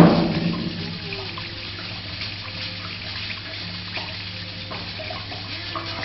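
Water trickling steadily through the reflux still's copper funnels and pipes, with a low steady hum under it. A knock at the very start dies away within half a second.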